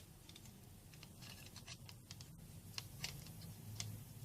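Faint small clicks and scratches of phone parts being handled as a replacement motherboard is set into an LG MS631 phone's housing, over a faint steady low hum.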